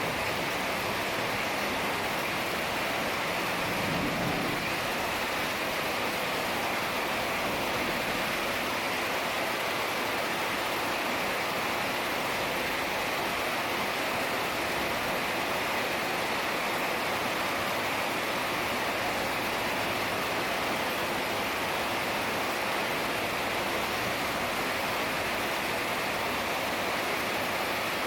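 Heavy rain falling steadily, an even, unbroken hiss of downpour. A brief low swell rises under it about four seconds in.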